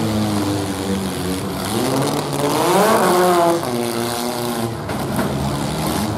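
Engines of modified compact pickup trucks in a demolition derby, revving under load as they push against each other. One engine climbs sharply in pitch about two and a half seconds in and backs off about a second later.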